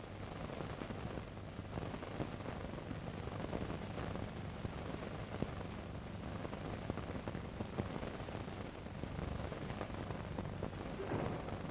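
Steady hiss with a low hum underneath, the background noise of an old film soundtrack, with faint scattered clicks.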